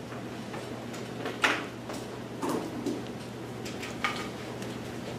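Room sound: a steady low hum with a few scattered light knocks and clicks, the loudest about a second and a half in.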